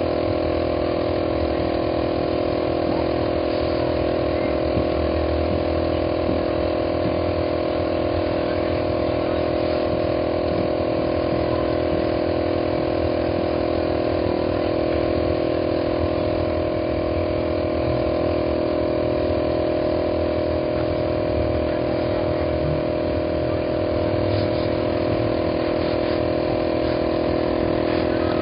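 Air compressor running steadily, a constant even hum with no change in pitch.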